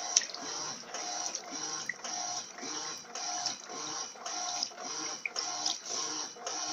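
Electrolux LF80 top-loading washing machine agitating a load of sheets at high water level: the motor and agitator stroke back and forth in an even rhythm of about two strokes a second, with water sloshing.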